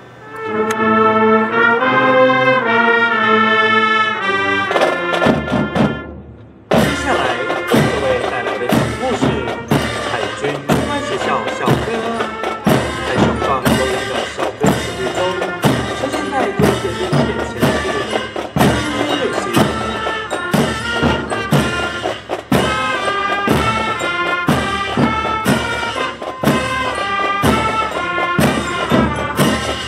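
Drum and bugle corps playing: brass hold a swelling chord that breaks off about five seconds in. From about seven seconds the brass play a melody over steady marching drums.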